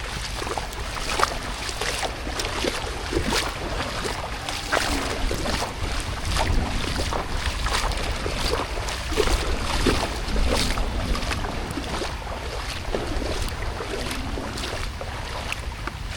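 Rain with wind rumbling on the microphone, and a steady scatter of sharp drips and splashes throughout.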